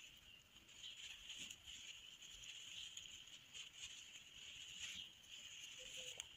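Near silence: a faint steady high hiss, with soft scratches and ticks from a steel crochet hook drawing thread through fabric.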